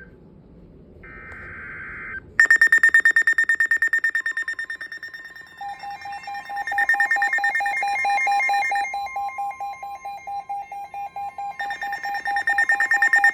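Emergency Alert System alert tones for a severe thunderstorm warning. A short buzzing data burst comes about a second in, then from about two and a half seconds loud, rapidly pulsing electronic beeps at several pitches overlap, swelling and fading in loudness.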